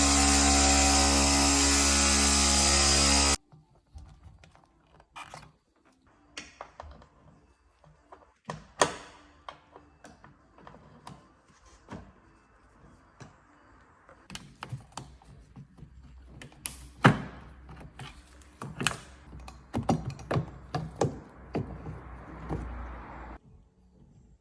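A loud steady hum stops suddenly a few seconds in. Irregular clicks, knocks and thunks follow, from tools and objects being handled, over a faint hiss that stops near the end.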